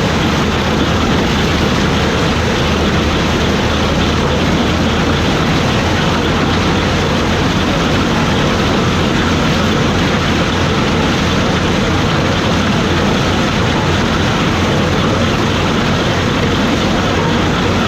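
Gleaner combine running steadily while harvesting corn, its engine and threshing machinery going at an even, loud pitch.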